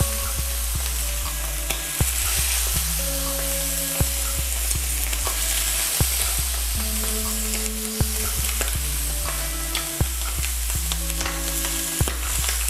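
Octopus tentacles searing in a very hot oiled grill pan, with a steady hissing sizzle. Background music with a steady beat runs under it, its bass note changing about every two seconds.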